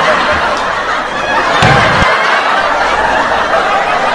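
A crowd of people laughing steadily, many voices blended together.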